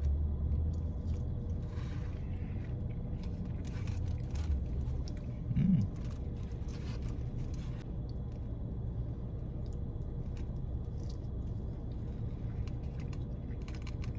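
A person biting into and chewing a meatball sub, with faint mouth clicks over a steady low rumble. There is a short hum of the voice about six seconds in.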